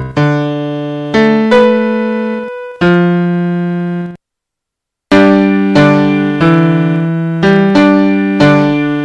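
Background piano music: slow struck chords that ring and fade one after another, with about a second of complete silence near the middle before the playing resumes.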